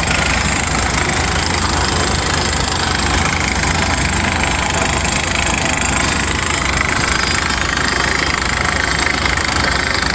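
Crawler DTH drilling rig running steadily: a constant engine note with a rapid, even knocking.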